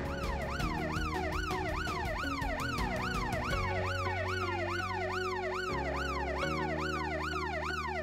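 Ambulance siren in yelp mode: a fast, evenly repeating rise and fall in pitch, about three sweeps a second, with soft background music underneath.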